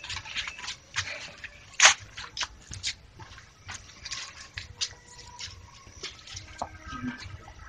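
Footsteps and shuffling over loose ground, heard as irregular crackling clicks, with one sharper crack about two seconds in.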